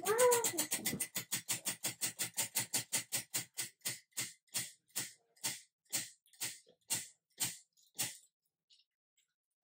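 A spinning prize wheel's pointer ticks over its pegs. The clicks start as a fast rattle and slow steadily to single ticks about half a second apart, then stop about eight seconds in as the wheel comes to rest.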